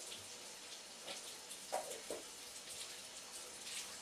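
Faint running tap water splashing in a sink as hands are washed, with a couple of light knocks about halfway through.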